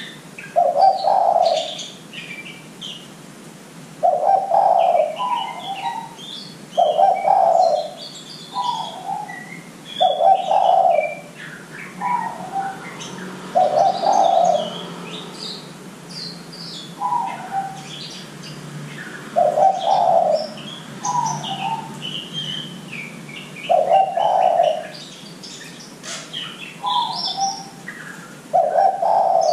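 Spotted dove (derkuku) cooing, a deep coo paired with a shorter higher note, repeated every three to six seconds. Small birds chirp high-pitched throughout.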